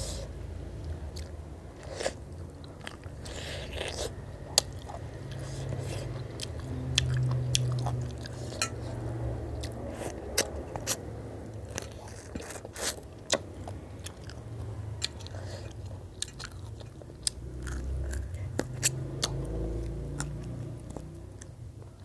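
A person chewing and biting food close to the microphone, with many sharp crunches and mouth clicks scattered throughout.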